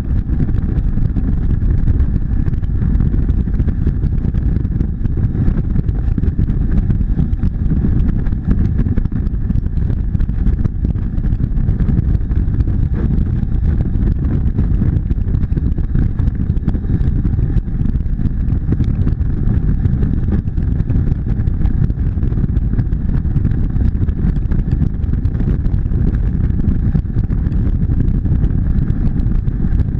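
Motorcycle cruising at highway speed: a steady, dense low rumble of wind buffeting and road noise with the engine running evenly underneath, no gear changes or revving.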